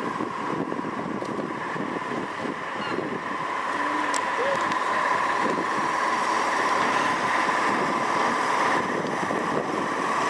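Locomotive-hauled passenger train creeping toward the listener, its locomotive giving a steady high hum over a low engine rumble that grows louder as it draws near.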